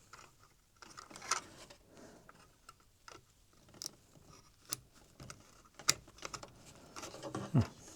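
Small plastic parts being handled and clipped together: scattered light clicks and taps, with a few sharper clicks, about a second and a half in and again near six seconds, as the 3D printer's touchscreen is clipped into place.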